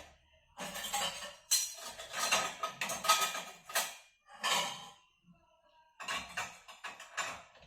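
Dishes and cutlery clattering in a run of irregular bursts, with a brief thin ringing tone about five seconds in.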